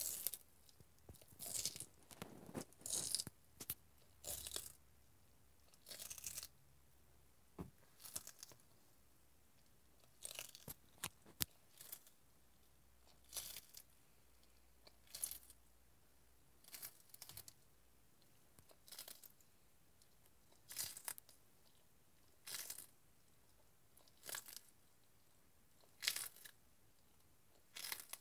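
A sulcata tortoise biting and tearing off pieces of raw celery stalk, each bite a short, crisp crunch, repeating about every one and a half to two seconds.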